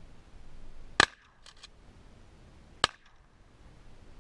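Two shotgun shots just under two seconds apart, fired at ducks over decoys, the first followed by a couple of fainter clicks.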